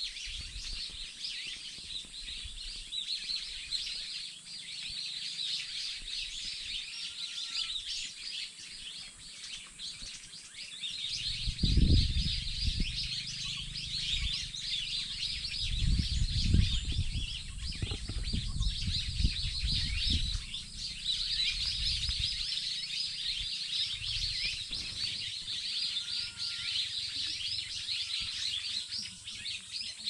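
A chorus of many wild birds chirping and twittering without pause. Low rumbling bursts come in about twelve seconds in and again for several seconds a little later, and these are the loudest moments.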